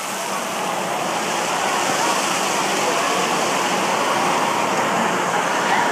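Steady rush of moving water, the constant din of a water park's pools and fountains, with faint voices mixed in.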